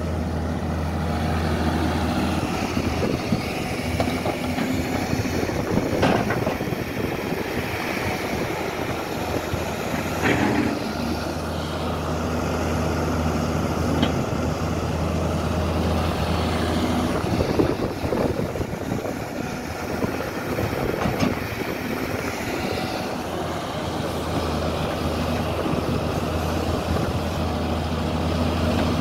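Doosan Daewoo wheeled excavator's diesel engine running steadily under load as the machine digs, with a few knocks of the bucket striking earth and brick rubble.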